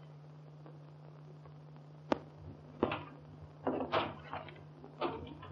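Steady hum of an early sound-film track. About two seconds in comes a sharp click like a door latch, then a few irregular knocks and footfalls as someone comes in through a door.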